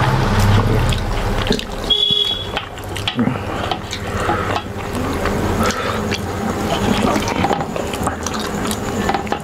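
Wet squelching and smacking of rice and curry being mixed by hand on steel plates and eaten, with many small clicks of fingers and food against the metal. A brief ringing tone sounds about two seconds in.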